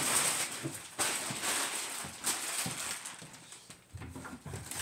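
Crinkly blanket fabric rustling in repeated bursts of about a second each as a puppy paws and noses at it.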